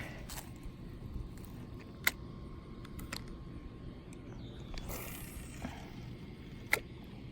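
Faint outdoor background with a steady low rumble, broken by two sharp clicks, one about two seconds in and one near the end.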